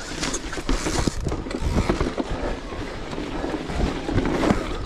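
Electric mountain bike rolling off down a rocky trail: tyres crunching over stones, and the bike knocking and rattling over the bumps in an uneven run of clicks over a low rumble.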